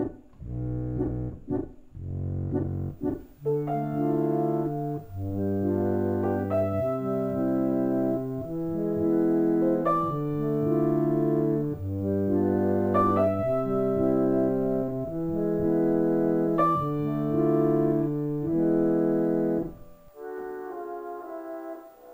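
Instrumental music led by keyboard chords: short repeated chords for the first few seconds, then held chords that change about every second or so, thinning out near the end.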